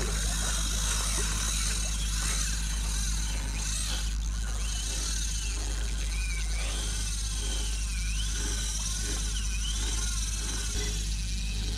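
Steady wind and water noise rumbling on an action camera's microphone, with a spinning reel being wound in, heard as faint regular ticks about twice a second through the second half.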